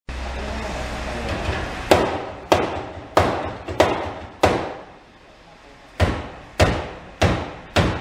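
Hammer striking car body sheet metal in a steady rhythm, about one and a half blows a second: five blows, a short pause, then four more, each with a brief ringing tail.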